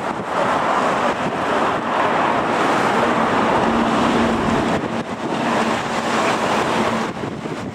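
Storm-force wind buffeting the microphone in a loud, steady rush, with a faint low steady hum coming in about three seconds in and fading out about a second before the end.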